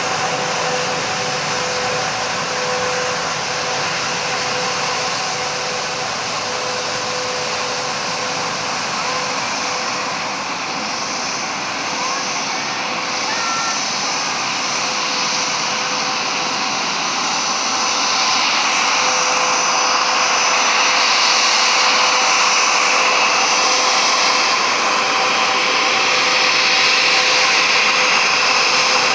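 The two rear-mounted Rolls-Royce BR710 turbofans of a Bombardier Global Express business jet running at taxi power: a steady whine over a rushing hiss. It grows louder about two-thirds of the way through.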